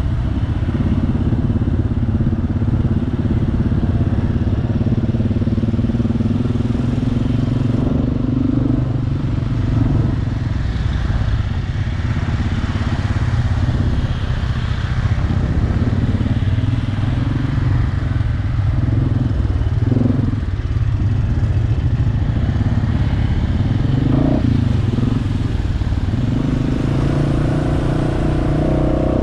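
ATV engine running under way on a trail ride, a steady drone whose pitch rises and falls several times as the throttle opens and closes.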